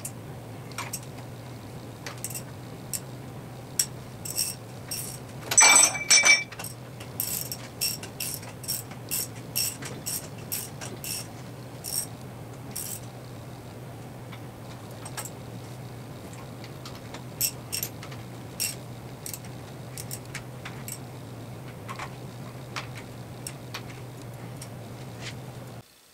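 Bridgeport milling machine head being loosened and tilted over with a wrench: a run of metal clicks and ratchet-like ticks, with one louder metallic clank and ring about six seconds in. A steady low hum lies under it all.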